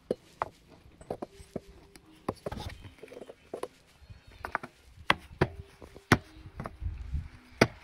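A series of irregular sharp knocks and taps, wood and metal, from a rake's wooden handle being worked in the rake head's metal socket; the loudest comes about six seconds in and another near the end.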